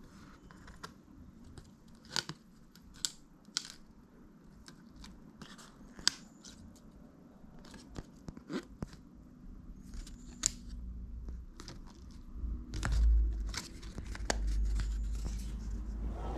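Cardboard packet of a small-fish hook rig being handled and pulled open: paper and card rustling and tearing, with sharp crisp snaps every second or so. A low rumble comes in near the end.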